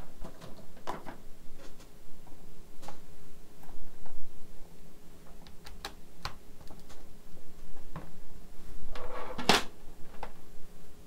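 Scattered clicks and light knocks from handling a laptop on a workbench, with a louder, denser clatter about nine seconds in.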